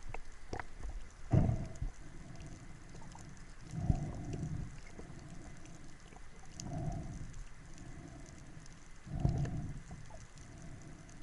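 A snorkeller breathing through a snorkel, heard as a low whoosh about every two and a half seconds, with faint scattered clicks and crackles between breaths.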